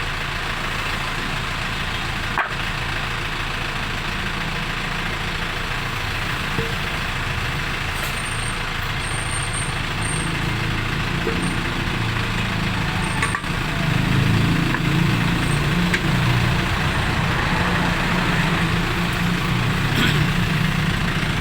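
A vehicle engine running steadily at idle, getting somewhat louder about two-thirds of the way through.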